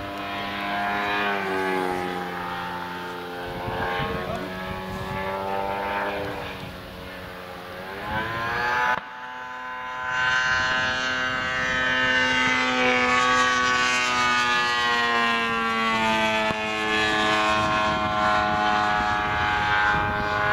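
Engine and propeller of a radio-controlled Pitts model plane in flight: a steady drone whose pitch glides up and down as it passes and changes throttle. It breaks off sharply about nine seconds in and then picks up again.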